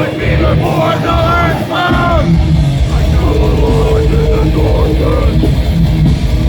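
Death metal band playing live at full volume, with heavy distorted guitars and drums. Loud yelled vocals come in the first couple of seconds, then a held guitar note rings over the band.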